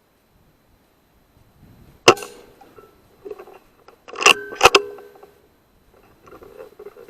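A single sharp shot from a Weihrauch HW100 .22 pre-charged air rifle about two seconds in, followed about two seconds later by a quick cluster of sharp knocks with a brief ring.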